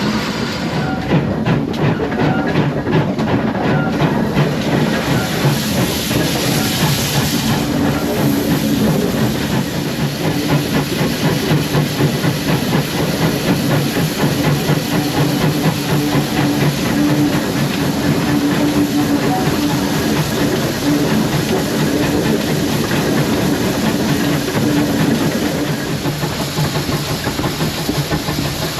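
Heritage train hauled by a pannier tank steam locomotive on the move: a steady rumble of coach wheels on the track with clickety-clack from the rails. A burst of hiss comes about six seconds in.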